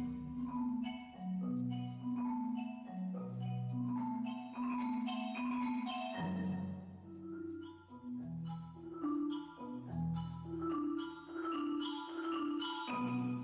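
Percussion orchestra of marimbas and other mallet keyboards playing a zarzuela intermezzo arranged for percussion: a melody of struck notes over long held low notes in the bass.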